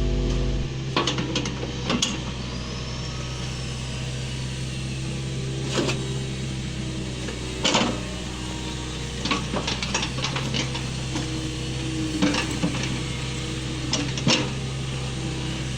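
Excavator engine running steadily, with irregular sharp metallic clanks and knocks from the work.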